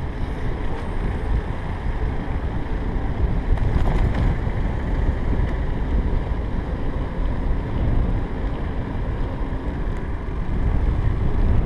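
Wind rushing over the microphone and road rumble from a velomobile rolling along on tarmac: a steady, deep noise with no breaks.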